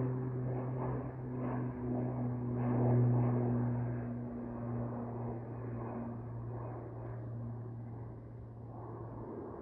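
An airplane's engines droning steadily as it climbs away after takeoff, slowly fading.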